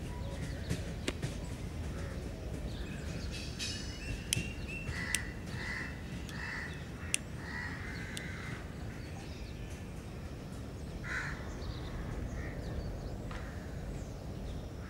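Crows cawing: a run of three or four caws about halfway through and another near eleven seconds in, over a steady low outdoor rumble, with a few sharp clicks.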